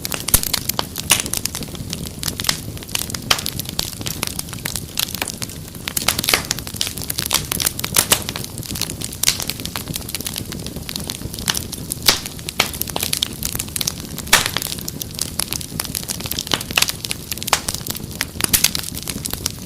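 Wood fire crackling: dense, irregular pops and snaps over a low steady rumble of burning.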